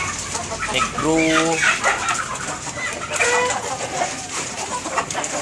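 Young chickens clucking and calling in their pens, with short pitched calls about a second in and again past the middle, over a steady high hiss. A man says a single word early on.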